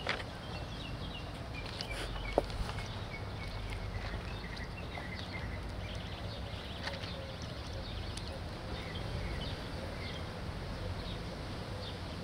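Outdoor ambience: a steady low rumble with small birds chirping now and then, and one sharp click about two and a half seconds in.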